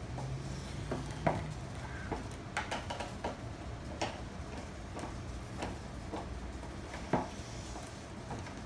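Irregular small metal clicks and taps of locksmith tools working inside a jammed bubblegum machine lock, the sharpest a little over a second in and again about seven seconds in.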